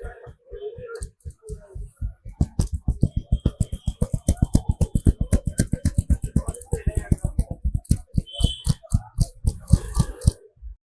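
Rapid rhythmic hand slaps and chops of a barber's head and shoulder massage, about six sharp strikes a second, starting about two seconds in and stopping shortly before the end.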